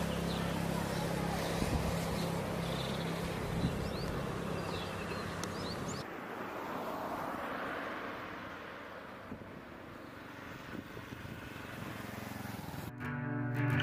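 Outdoor road ambience: a steady low hum with a few high chirps, then passing traffic that swells and fades, and a motorcycle approaching, louder toward the end. Guitar music comes in near the end.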